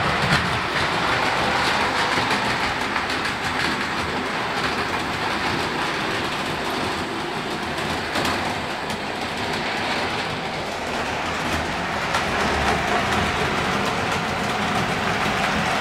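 Hornby AcHO CC 7121 HO-scale model locomotive running on layout track hauling its coaches: a steady whirr of the motor and wheels, with quick clicking over the rail joints. It grows a little louder in the last few seconds.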